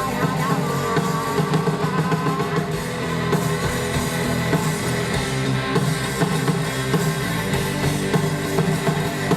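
Rock band playing live: drum kit and guitars in a loud, continuous passage.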